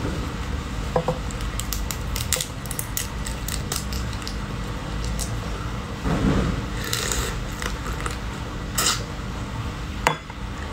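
Crab shell and legs cracked and pulled apart by gloved hands: a string of sharp clicks and crunches, with wet chewing and biting at a leg around the middle and a sharp snap near the end.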